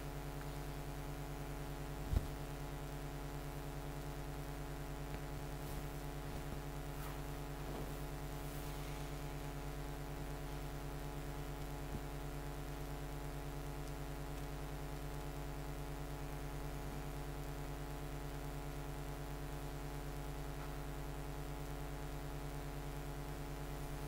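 Steady electrical mains hum with its stack of overtones, with faint scratches of a marker writing on a whiteboard in the first several seconds and a single sharp click about two seconds in.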